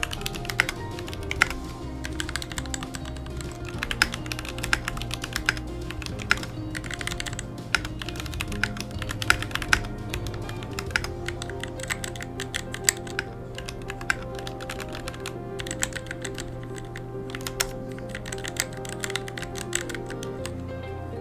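Mechanical keyboard keys being typed on, including a numeric keypad with yellow Gateron linear switches: irregular keystrokes in quick runs and pauses, over background music.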